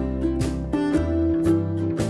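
Background music led by plucked or strummed acoustic guitar, with a bass line.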